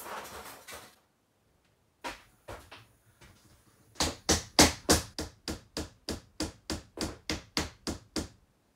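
Hammering on wood: a few single knocks, then a fast even run of about four blows a second for some four seconds, at the RV ceiling's edge where the paneling is being fixed.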